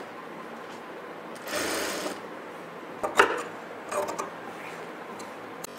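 Sewing machine motor humming steadily while the work is handled. A short burst of noise comes about one and a half seconds in, and a few sharp clicks and knocks follow around the three- and four-second marks, the loudest just after three seconds.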